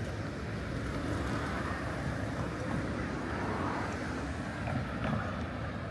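City street traffic: steady engine and tyre noise from passing cars, swelling a little in the middle.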